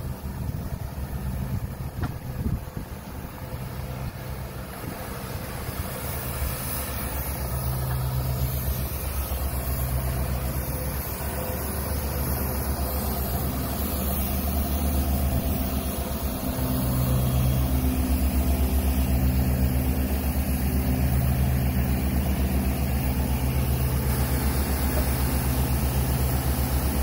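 A large engine or generator set running steadily, a low machine hum that grows louder over the first several seconds and then holds steady.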